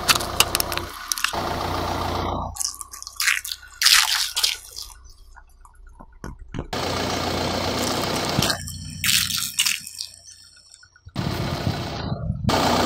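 A car tyre rolling over things on a gravelly road: sharp cracks and crunching from a plastic toy car and liquid-filled balloons being crushed, with stretches of steady rolling noise later on.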